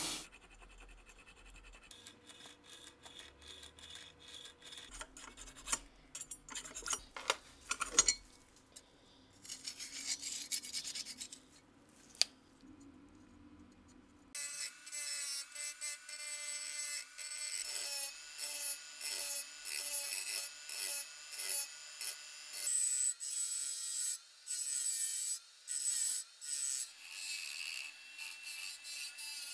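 Quiet rubbing with a few sharp clicks, then from about halfway a rotary tool's small abrasive wheel scrubbing rust off a steel pistol slide in repeated short passes, each a second or less, with brief lifts between them.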